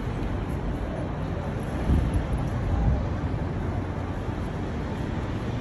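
Outdoor street noise: a steady low rumble of traffic and wind on the microphone, with a couple of louder swells about two and three seconds in.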